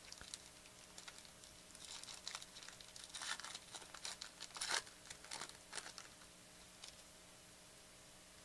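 Foil wrapper of a 2014-15 Panini Totally Certified basketball card pack being torn open and crinkled by hand: faint scattered crackles starting about two seconds in, busiest around the middle, dying away about seven seconds in.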